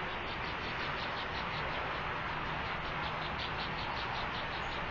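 Steady hiss of outdoor microphone noise with a rapid, even series of faint high chirps, about five a second.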